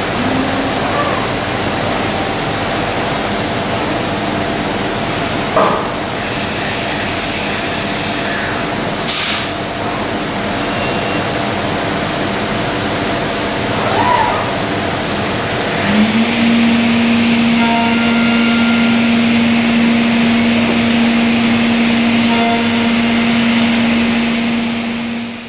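Tech Z5 five-axis CNC woodworking machining centre running as it works a wooden beam: steady machine noise with a few short hisses and knocks. About two-thirds of the way through, a steady low hum sets in and holds.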